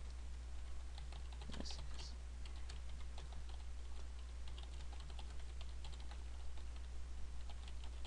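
Computer keyboard being typed on: a quick, uneven run of key clicks while a sentence is entered, over a steady low electrical hum.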